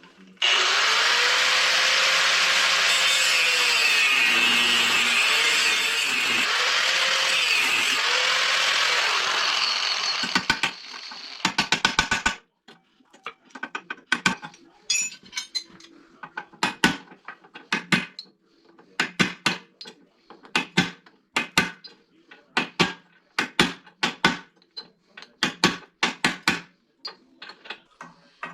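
A power tool runs loudly and steadily for about ten seconds, its pitch rising and falling a few times, and then stops. A quick flurry of sharp knocks follows, then single sharp knocks roughly once a second.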